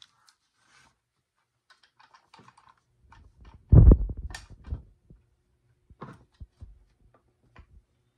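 Light clicks and clatter of metal tools and parts being handled on a chainsaw crankcase and its splitting puller, with a loud, dull knock and rattle about four seconds in and a few smaller knocks after it.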